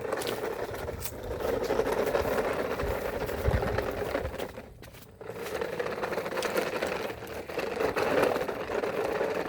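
Small electric motor of a toy truck whirring steadily, stopping briefly about five seconds in and then running again.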